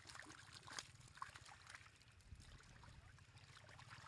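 Faint splashing and trickling of shallow muddy water as a crowd of small fish wriggle in it, with soft scattered splashes.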